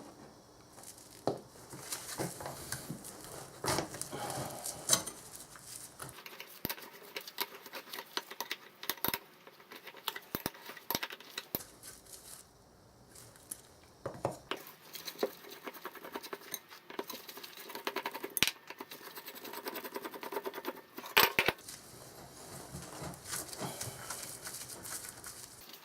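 Small metal parts and hand tools being handled: irregular clinks, taps and scrapes, with a few sharper knocks.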